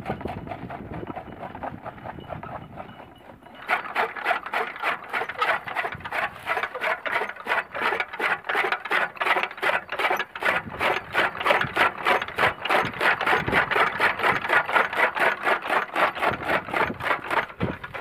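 Bull-powered gear toka (chaff cutter) clattering in a fast, even rhythm of about four to five clacks a second as it chops green fodder. It is fainter at first, then louder and sharper from about four seconds in.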